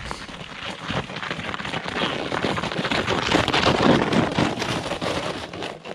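Someone sliding fast down a wet, slushy slope: a rushing, crackling scrape that builds to its loudest about three to four seconds in and stops abruptly at the end.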